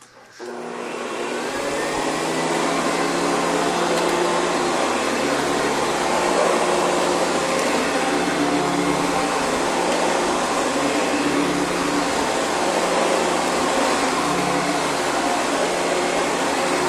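Hoover Convertible upright vacuum cleaner switched on about half a second in, its motor whining up to speed over a couple of seconds, then running loud and steady.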